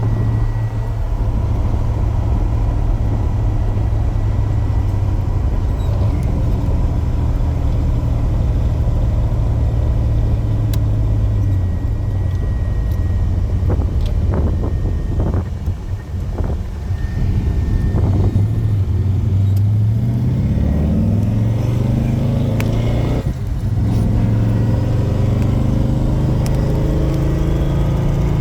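1979 Chevrolet El Camino's 383 stroker V8, breathing through headers and dual exhaust, running at a steady cruise. It eases off for a few seconds about halfway, then climbs steadily in pitch under acceleration for about four seconds, dips briefly as a gear is changed, and settles back to a steady pull.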